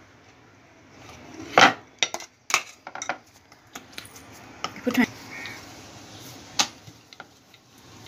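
Kitchenware being handled on a wooden rolling board: a handful of sharp knocks and clatters from the rolling pin, board and a plate. The loudest comes about a second and a half in, with smaller ones scattered after it.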